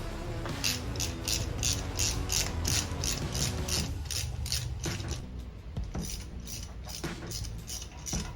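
Hand ratchet wrench clicking in quick runs, about three clicks a second, then more spaced out after about four seconds, as bolts are backed out during an engine teardown.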